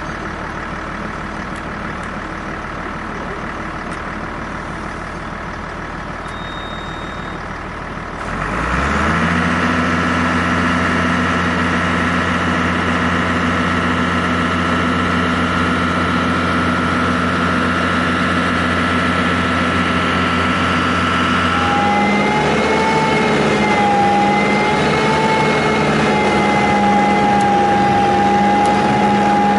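Diesel engine of a tractor-driven forestry yarder idling, then rising about eight seconds in to a steady working speed. Some fourteen seconds later the sound shifts and a wavering whine joins it as the yarder's winch drums run the cable.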